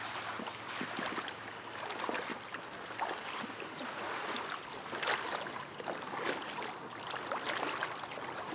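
Rustling reeds and sloshing, splashing water as a camouflaged duck boat is moved and handled in flooded marsh grass. It is a continuous run of crackles and swishes.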